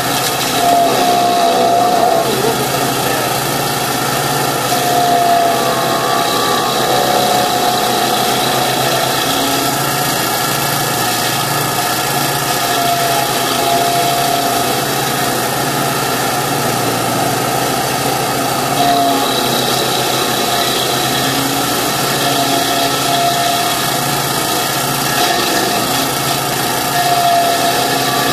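Kanga mini loader's engine running steadily while powering a stump grinder attachment, with a few small surges in loudness.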